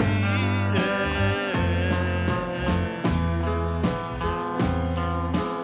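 Background music with a steady bass line.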